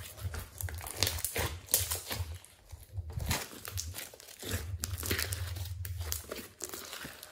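Glossy slime with glitter being squeezed, stretched and folded by hand, giving an irregular run of wet crackles and pops.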